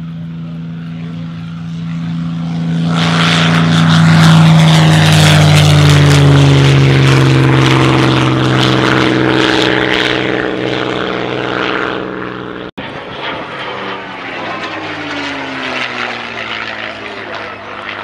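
Supermarine Spitfire's Rolls-Royce Merlin V-12 swelling to a loud low flyby, its engine note dropping in pitch as it passes. After an abrupt cut about two-thirds through, a P-51 Mustang's Packard Merlin V-12 passes with another falling note.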